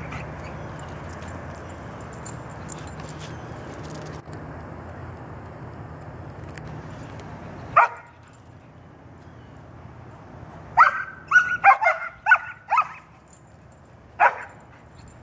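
Standard poodles barking in high-pitched barks at a squirrel up a tree: a single bark about halfway through, a quick run of about six barks a few seconds later, and one more near the end. Before the first bark there is a steady low hum and hiss.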